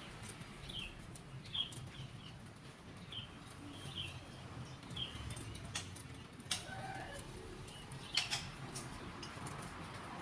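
Small kept songbirds chirping: short, high chirps repeated every second or so, with a few sharp clicks or flutters mixed in, loudest about two-thirds of the way through and again near the end.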